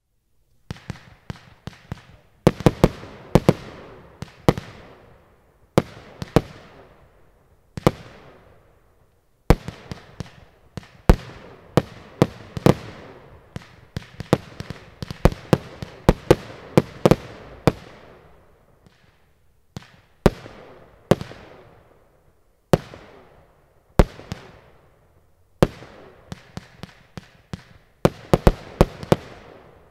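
Firework cakes firing shot after shot: sharp bangs of shells launching and bursting, coming singly and in quick clusters, each followed by a fading echo, with short pauses between groups.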